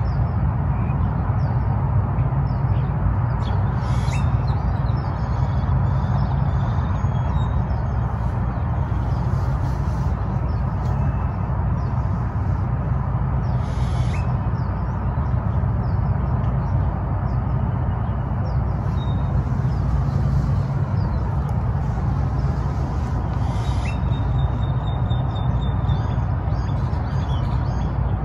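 Steady low rumble of outdoor morning ambience, with faint bird calls and chirps scattered over it.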